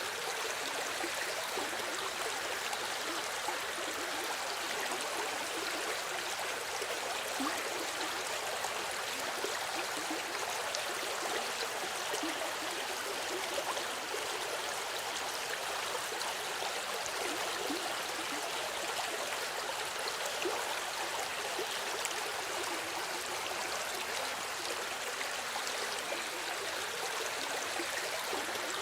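River water flowing steadily over stones, an even rushing with light gurgling and bubbling.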